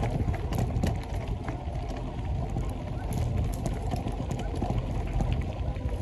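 Wind buffeting the microphone of a moving bicycle, with a steady low rumble, and bike tyres rolling over a dry, leaf-covered dirt trail, giving many short clicks and crunches.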